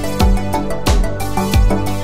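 Background music with a steady beat, a deep drum hit about every two-thirds of a second under sustained notes.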